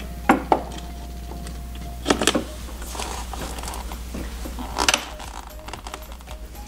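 Hand rivet gun being worked to set aluminium rivets through a snowmobile's A-arm boot: a few sharp metallic clicks and clacks, the loudest about two seconds in and again near five seconds.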